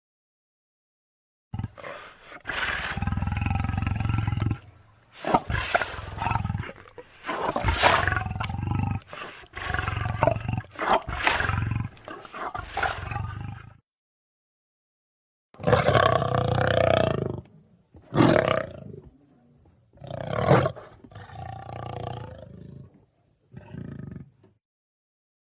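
Lion-like roars and growls made as griffon creature sound effects. They come as a string of about ten calls of different lengths, some long and rumbling, some short, cut apart by gaps of dead silence. The longest gap, nearly two seconds, falls just past the middle.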